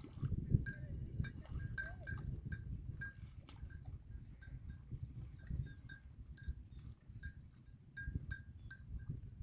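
Bells hung on grazing water buffalo clinking irregularly, two or three short rings a second, over a low rustling noise.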